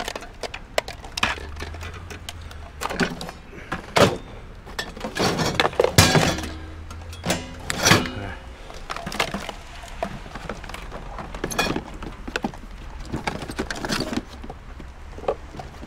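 Junk being handled and pulled from a pile of hard rubbish: irregular knocks, clatters and rattles of plastic and metal items and cords, with a few louder thunks around the middle.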